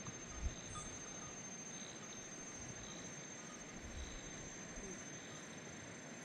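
Faint outdoor ambience with a steady high insect drone and a short chirp repeating about once a second. A brief low thump about half a second in.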